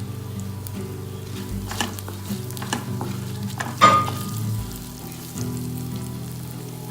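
Ginger-garlic paste, slit green chillies, bay leaf and cumin seeds sizzling in ghee in a pan as they are stirred, with the spoon scraping and knocking against the pan a few times, loudest about four seconds in.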